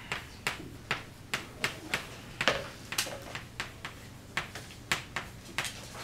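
Chalk strokes on a blackboard as numbers are written: a string of sharp, irregular clicks, a few a second, the loudest about two and a half seconds in.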